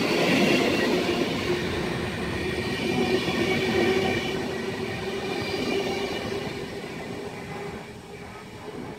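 Intercity passenger coaches rolling past, wheels rumbling with a steady squeal, the sound fading away as the last coach goes by.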